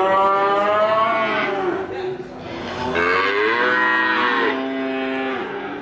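A young calf bawling: two long moos with a short pause between, each rising and then falling in pitch.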